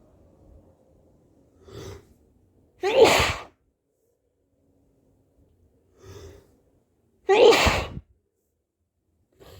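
Two loud sneezes about four and a half seconds apart, each preceded by a short, sharp intake of breath, with another intake starting near the end.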